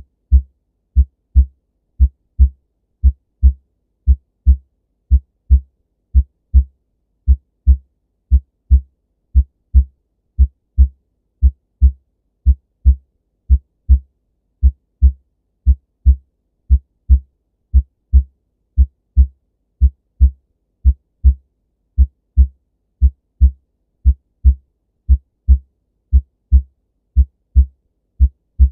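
Normal human heart sounds: a steady lub-dub, the first and second heart sounds as paired low thumps about one pair a second, with silence between the beats and no murmur.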